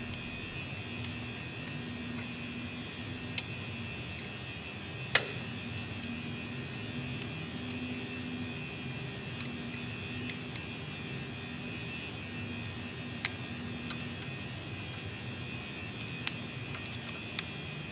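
Scattered sharp clicks and taps of a screwdriver and fingers working the plastic locks of car wiring connectors, the loudest a little after 5 seconds in, over a steady low background hum.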